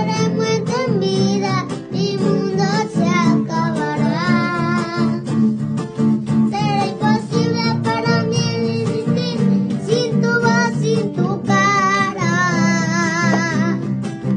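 Background music: a song with a singing voice over plucked acoustic guitar.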